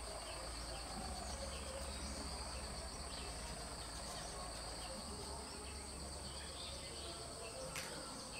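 Steady high-pitched insect drone in two unbroken tones, with faint scattered bird chirps and a single sharp click near the end.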